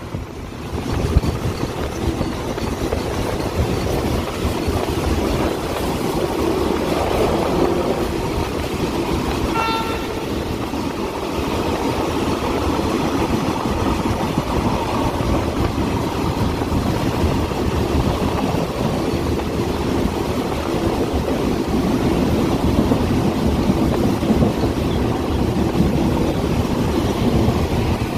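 State Railway of Thailand passenger train running on the rails, heard through an open carriage window: a steady rumble of wheels and rushing air. A brief horn toot sounds just under ten seconds in.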